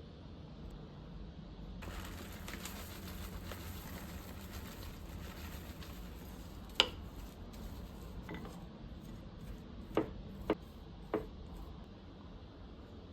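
Kitchen utensils and dishes knocking and clinking during food preparation: several sharp knocks, with a steady hiss under the first part.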